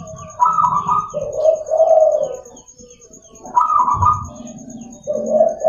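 Zebra dove (perkutut) cooing, three times: each phrase starts with a higher note and drops into lower rolling coos.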